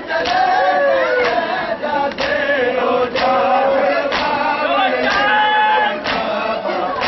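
Crowd of men chanting a mourning lament together while beating their chests in unison (matam), a sharp slap about once a second keeping time under the singing.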